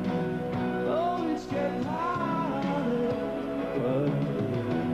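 Live pop-rock band music with a man's voice singing over sustained keyboard and guitar parts.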